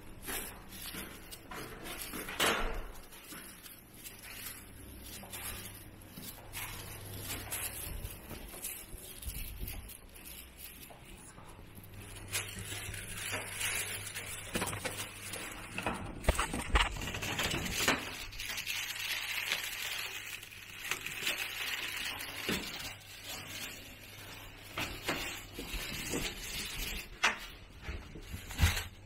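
Footsteps, rustling and scattered light knocks of someone walking through a hotel, over a low steady hum.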